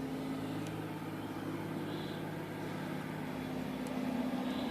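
Steady low mechanical hum in the background, with two faint tiny clicks, one about a second in and one near the end.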